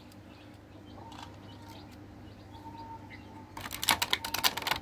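Clear plastic blister tray crackling and clicking as a diecast toy car is pried out of it, a quick run of sharp clicks starting about three and a half seconds in. Before that only a low steady background hum.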